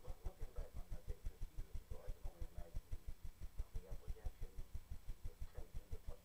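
Muffled conversation between two men, under a low rhythmic thumping that repeats about six or seven times a second and is louder than the voices.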